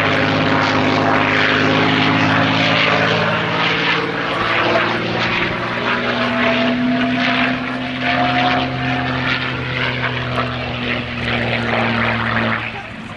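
North American P-51D Mustang's Packard Merlin V12 engine and propeller flying aerobatic manoeuvres, a steady drone whose pitch slowly rises and falls as the aircraft manoeuvres. The sound drops away abruptly just before the end.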